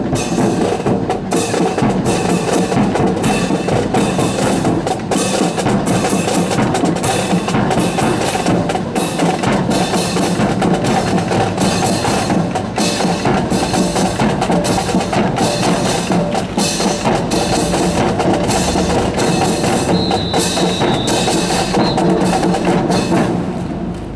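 Marching band music with drums keeping a steady beat about twice a second and sharp wood-block-like clicks. The music stops right at the end.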